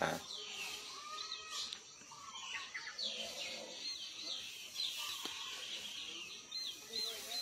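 Small birds chirping over and over in short, high calls, fairly faint.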